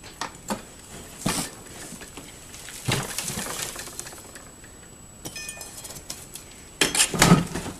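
Irregular metal clanks and knocks of a garden cart's axle being worked loose from its frame, with a short ringing rattle about two-thirds through and the loudest knocks near the end.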